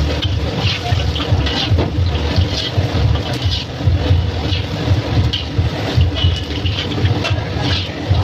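Chicken momos deep-frying in hot oil in an iron wok, the oil sizzling and crackling steadily, with a continuous low rumble underneath.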